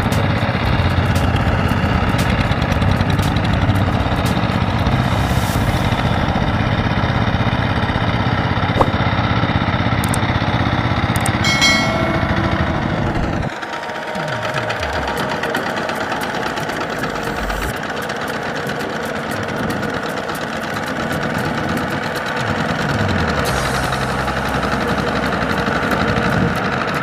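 Kubota walk-behind hand tractor's single-cylinder diesel engine running steadily under load while its cage wheels work through flooded paddy mud. About halfway through, the deep low part of the engine sound drops away and it sounds thinner.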